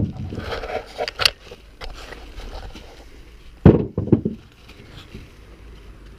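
Wooden logs being handled on a sawhorse: a few heavy knocks of wood, about four seconds apart, with scraping and clattering in between. The battery chainsaw is not running.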